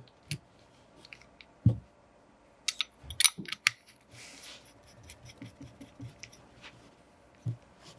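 Small metal parts of a Planet Eclipse CS3 paintball marker's bolt (spool, spring and switch) clicking and scraping as they are pushed together by hand: several sharp clicks over the first few seconds, a brief scrape about four seconds in, then light ticks.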